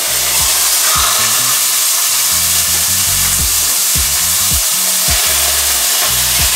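Frozen minced beef sizzling loudly in hot olive oil in a frying pan, a steady hiss. Background music with a steady beat runs underneath.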